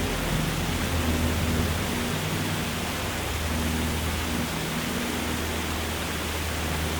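Cabin noise of a Piper PA-30 Twin Comanche: a steady rushing noise with the low drone of its twin piston engines and propellers underneath.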